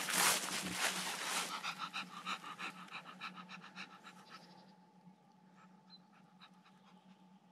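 A dog panting rapidly, fast even breaths that grow fainter and die away after about four seconds.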